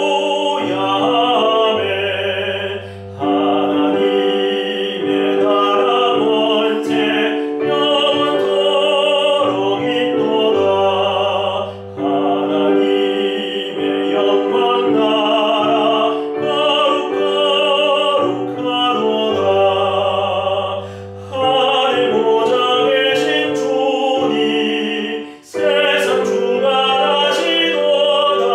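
A man singing a Korean hymn in a full, classical-style voice with vibrato, over a recorded keyboard accompaniment. The phrases are long and held, with brief breath breaks between them.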